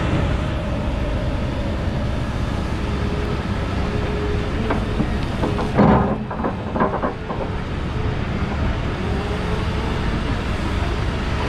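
Volvo EC350E crawler excavator working in sand, its Volvo D8M diesel engine running steadily under load with a steady hum. From about five to seven seconds in comes a run of sharp knocks and clanks as the bucket scoops and drops sand.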